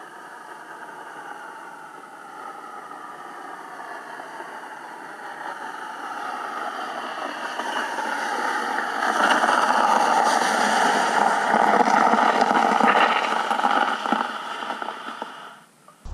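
Four-wheeler (ATV) engine heard through an underwater microphone beneath the lake ice. It grows steadily louder as the machine drives back toward the mic, is loudest in the second half, then cuts off abruptly just before the end.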